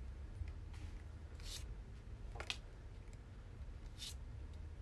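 Pokémon trading cards handled in the hand: a few faint, brief swishes as cards are slid and shuffled through a small stack, over a low steady hum.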